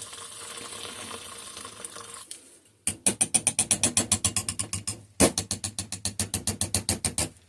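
Fragrance oil blend being stirred briskly in its container: rapid, even clicking of about ten strokes a second, in two runs, the second starting about five seconds in, after a soft steady hiss.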